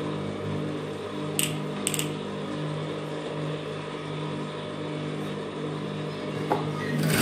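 Industrial lockstitch sewing machine's motor running with a steady hum, with a couple of light mechanical clicks about a second and a half and two seconds in.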